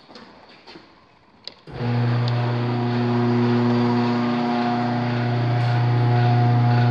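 Electric garage door opener switched on with a click, its motor starting about one and a half seconds in and then running with a steady, loud hum. The trolley is travelling while the disengaged door has not yet caught onto it.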